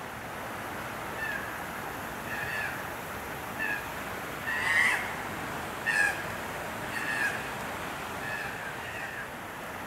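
A series of short, high-pitched animal calls, about one a second, over a steady hiss; the loudest two come near the middle.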